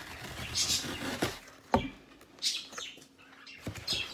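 Parcel packaging rustling and crinkling as it is handled and opened by hand, in irregular bursts, with a few sharp clicks and taps; the loudest tap comes just under two seconds in.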